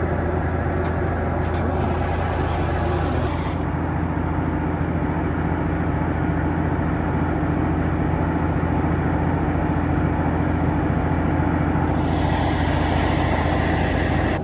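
Large diesel engine of a farm tractor running steadily at constant speed, a deep even drone. A hiss above it drops away a few seconds in and comes back near the end.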